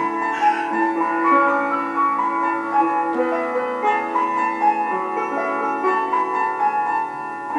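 Instrumental music: a melody of sustained pitched notes that change every half second or so, with no voice over it.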